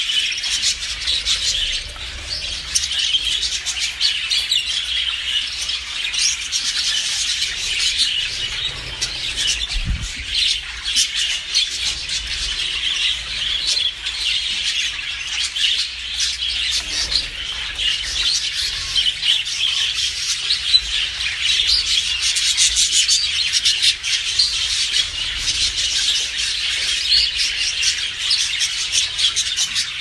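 A flock of English budgerigars chattering: a dense, continuous mix of high chirps and warbles from many birds at once.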